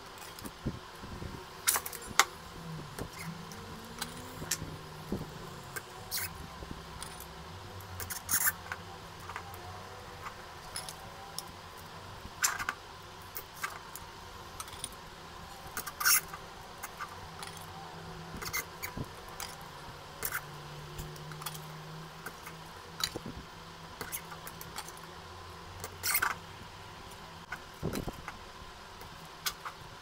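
Compact discs and rubber spacers being handled and slid onto a steel axle rod: irregular light plastic clicks and clacks, several a few seconds apart.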